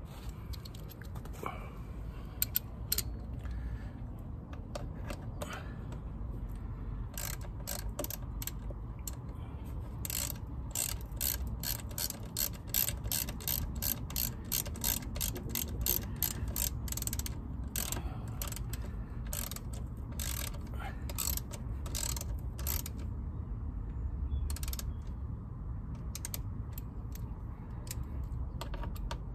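Small hand ratchet clicking as a bolt on a motorcycle's rear brake caliper is turned. A few scattered clicks come first, then a steady run of about three clicks a second through the middle, and a few more near the end.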